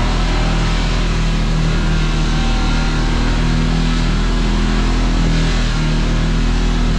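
Kawasaki Teryx KRX side-by-side's parallel-twin engine running steadily under way on the trail, its pitch drifting slightly, under a constant rushing noise.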